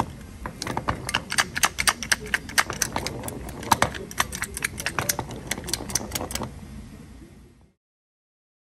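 Rapid, irregular clicks and light knocks, a dense run of them, that cut off suddenly near the end.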